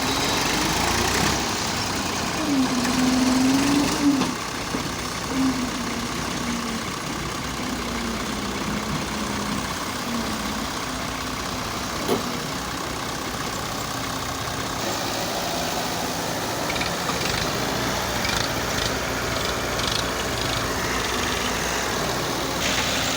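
Engine of heavy machinery running steadily, with a wavering mid-pitched tone over the first ten seconds or so.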